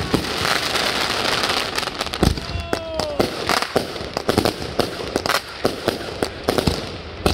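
Consumer fireworks going off in rapid, irregular succession: a dense run of bangs and reports over continuous crackling from 200-gram cakes and aerial shells. About two and a half seconds in there is a brief falling whistle-like tone.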